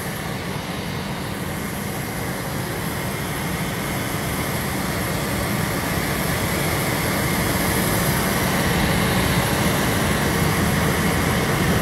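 Steady roar of a jet's engines running on the airport apron, with a faint high whine, growing slowly louder.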